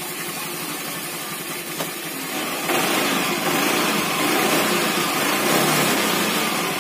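Automatic scooter engine and CVT running at idle, then revved up and held at higher revs for a few seconds before easing back, running much better on newly replaced CVT rollers.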